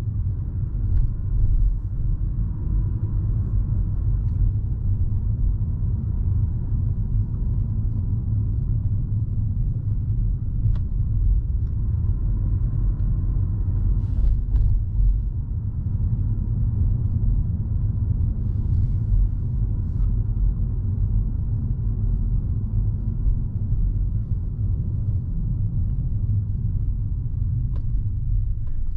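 Steady low road rumble from inside a moving car.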